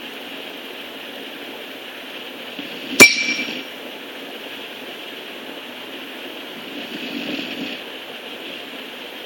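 Boxer-mastiff puppy snoring in its sleep, a soft snore near the end. About three seconds in, a single sharp clink rings out briefly and is the loudest sound.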